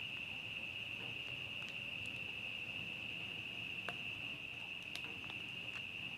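A steady, high-pitched cricket trill that keeps going without a break, with a few faint light ticks.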